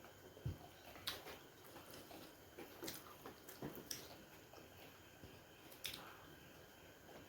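Faint eating sounds of momos being chewed, with a handful of short wet clicks and smacks scattered through.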